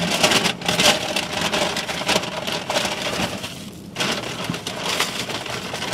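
Aluminium foil burrito wrapper crinkling and rustling as it is handled and unwrapped, a dense run of quick crackles with a brief lull a little past halfway.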